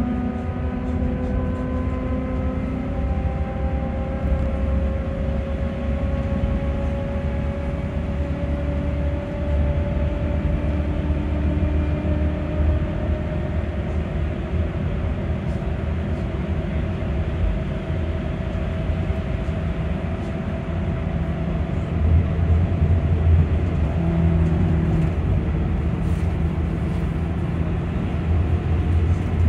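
Electric bus drive motor whining from inside the passenger cabin, its pitch climbing slowly as the bus gathers speed, over a steady rumble of road and tyres. The rumble swells for a few seconds near the end.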